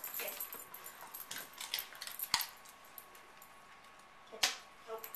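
A wire fox terrier's collar tags jingling and its claws clicking on a hard floor as it moves and sits, busy in the first couple of seconds, then a single sharp click near the end.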